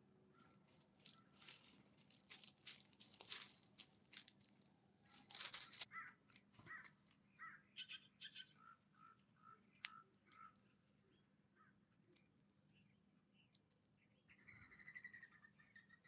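Faint pecking and crunching of birdseed with rustling in dry leaves as a common raven and then a California scrub-jay feed at a seed-covered stump. The loudest stretch is a crackly scrape about five seconds in. Short bird notes repeat several times in the middle, and a brief call comes near the end.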